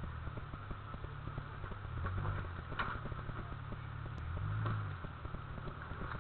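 Lifted Jeep Cherokee XJ's engine running at low revs while rock crawling over boulders, with two throttle swells, one about two seconds in and a longer one about four and a half seconds in. Scattered small clicks and knocks ride over the engine.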